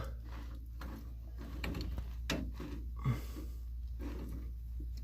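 A few faint, short knocks and scrapes of pipe fittings being handled, over a low steady hum.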